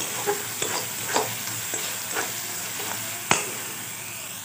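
Masala sizzling in hot oil in a metal kadai while a steel spoon stirs it, scraping and clicking against the pan; the loudest knock comes about three seconds in. The masala is fried through.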